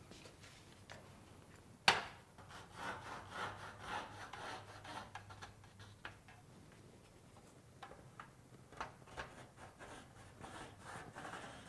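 A single sharp knock about two seconds in as the level is set down on a steel standing seam roof panel. Then scratchy rubbing strokes of a marker drawn along the level across the metal panel, in two spells with a pause between.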